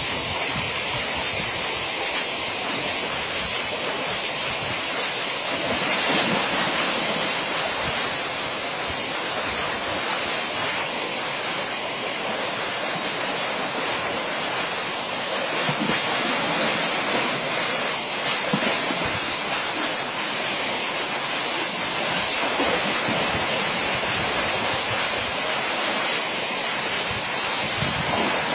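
Steady rush of water flowing through a ditch, an even hiss with no break.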